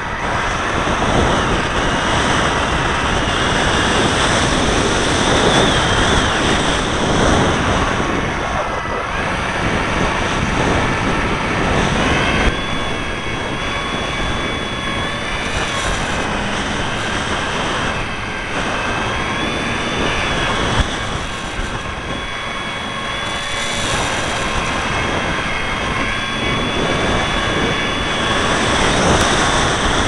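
Model aircraft's motor and propeller whining in flight, heard from the onboard camera, with the pitch of the whine stepping up and dipping several times as the throttle changes. Wind rushes past the camera throughout.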